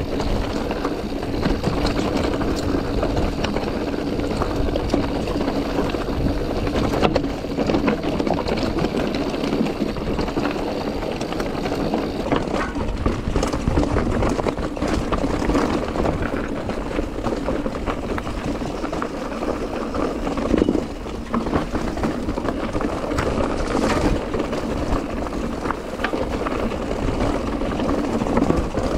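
Mountain bike riding downhill over a rough, rocky, dusty trail: a continuous rattle and crunch of tyres on loose stone, with frequent knocks from the bike.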